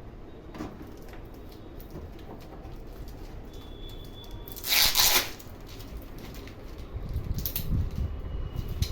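Packaging being handled while a keyboard's power adapter is unboxed: a few small clicks and knocks, with one loud, brief rustle about five seconds in.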